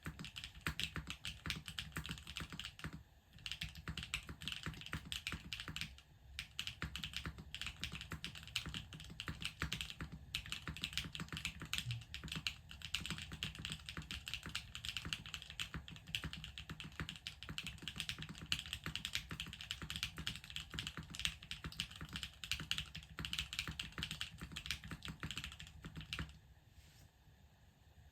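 Fast continuous typing on a custom 60% mechanical keyboard with lubed long-pole linear switches (JWK Poseidon) on a carbon fibre plate, giving dense crisp clacks. Brief pauses come about 3, 6 and 10 seconds in, and the typing thins out near the end.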